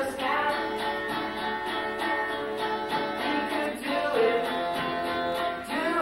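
A live band playing a song, with a voice singing held, gliding notes over instrumental accompaniment.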